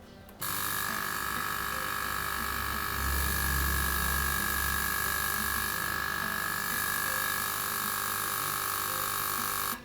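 Volcano vaporizer's air pump motor running steadily with a high whine. It switches on about half a second in and cuts off just before the end.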